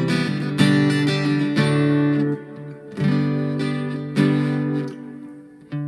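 Electro-acoustic guitar strumming chords through a Blackstar Superfly battery-powered amp. There are about six strums, each chord left to ring and fade before the next.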